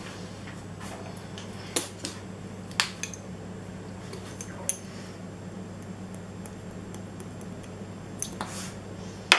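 Scattered light clicks and clinks of a metal teaspoon and kitchenware, a few separate ticks spread over several seconds, over a steady low hum.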